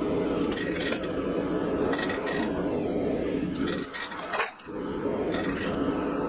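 Steady shop-machine noise while a glowing bundle of steel cable is squeezed in a swage to forge-weld cable damascus, with scattered scrapes and clinks from the hot metal. The noise drops out briefly about four and a half seconds in, then resumes.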